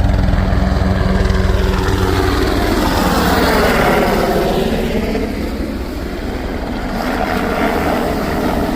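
A loud, steady engine drone, its tone sweeping down and back up across the middle.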